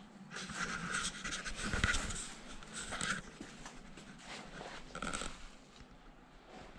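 Panting breaths in quick succession, mixed with rustling; the breaths bunch up in the first three seconds, with another about five seconds in.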